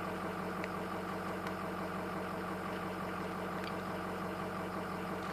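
Ford F-250 pickup engine idling steadily.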